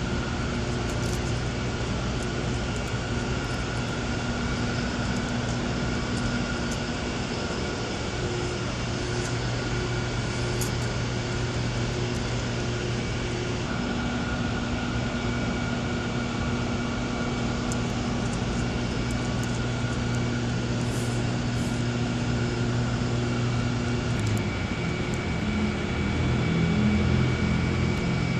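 A steady machine hum with a constant low drone and a faint higher whine; a few seconds before the end the low tones waver and grow a little louder.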